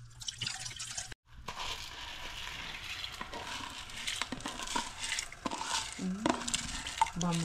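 Kitchen food-preparation sounds: scattered clicks and knocks of utensils and dishes against a light steady haze.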